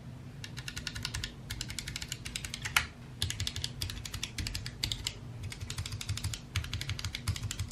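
Mechanical keyboard switches on a Glorious GMMK Compact 60% keyboard pressed rapidly in quick runs of clicks, many a second, with short pauses between the runs. These are freshly fitted Gateron red linear switches being tried out.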